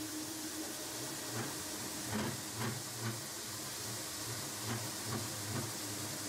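Four-head power-drive floor sander running on a timber floor with 60-grit Norton Red Heat ceramic discs, grinding off the old coating. A steady hiss, with a low hum that swells and fades about twice a second.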